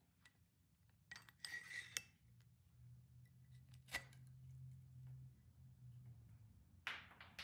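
Faint metal clicks and a short scraping rustle as a carbide-tipped hole saw's rapid-eject adapter is worked by hand to push the wood plug out of the saw.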